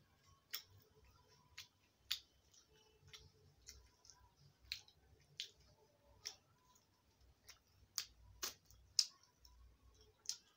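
Close-up chewing of rice and a fried potato fritter (aloo bora), heard as faint, irregular sharp mouth clicks and smacks, roughly one a second, the loudest about eight to nine seconds in.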